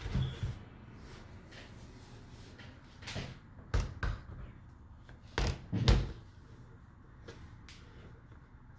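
Several knocks and thuds as the case of an HP desktop PC is handled and set against a surface while its back panel is being worked off. The loudest thuds come in a pair near six seconds in.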